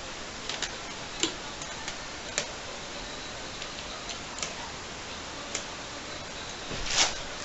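Scattered sharp clicks from the type bars and keys of a 1910 Continental Standard typewriter as bunched-up keys are freed by hand, about eight at uneven intervals, with the loudest clack near the end.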